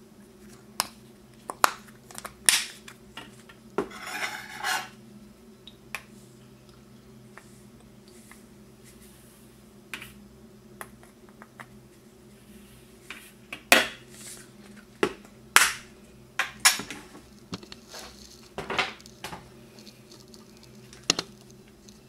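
A small metal measuring spoon clinks and taps against a plastic spice jar and the food processor's plastic bowl as garlic powder is scooped out and tipped in. The clicks come in scattered bunches, with a short scraping rattle about four seconds in.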